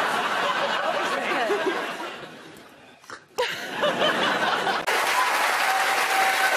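Studio audience laughing, dying away after about two seconds. After an abrupt cut there is laughter again, and then a steady crowd sound that is probably applause.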